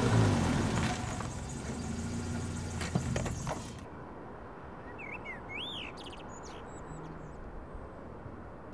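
A car drives past: engine and tyre noise is loudest at the start, fades, and cuts off about four seconds in. After that, small birds chirp a few times.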